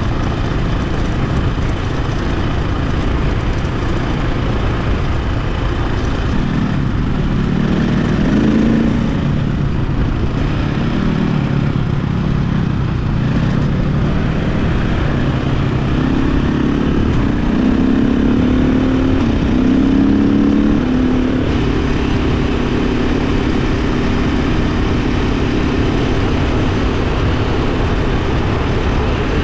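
KTM 520 dirt bike's four-stroke single-cylinder engine running under way. Its pitch rises and falls several times as the throttle is worked, then holds steady for the last third.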